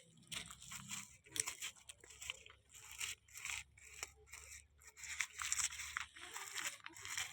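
Irregular crunching and rustling, a rapid run of short scraping noises with brief pauses between them.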